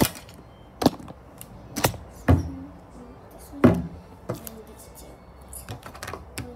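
A series of sharp knocks and taps, about half a dozen, irregularly spaced: hard objects being handled and set down close to the microphone. The loudest come at the start and about two and three and a half seconds in.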